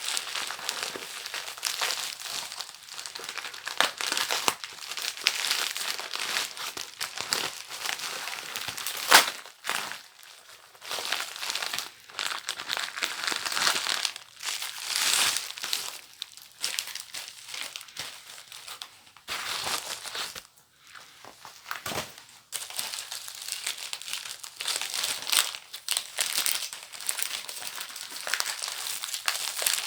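Paper packaging being unwrapped by hand, crinkling and crumpling in irregular handfuls. There is a sharp snap about nine seconds in, and brief lulls around ten and twenty seconds in.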